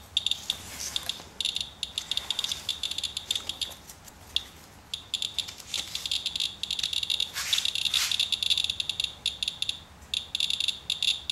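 Radalert Inspector Geiger counter chirping once for each detected count: rapid, irregular high beeps that come thicker from about halfway through as the reading climbs. The fast count rate is the sign of elevated radiation in the rain-wiped sample, which the owner calls pretty hot. A couple of brief rustles of handling come near the middle.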